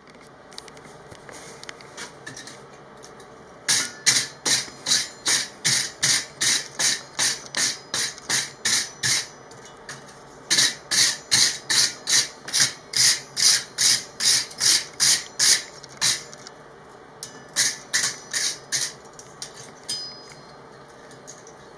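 Wire brush scrubbing a heated forged-steel camp hook in quick back-and-forth strokes, about three a second, in three bouts with short pauses between. This cleans off the forge scale before the piece is darkened with paste wax.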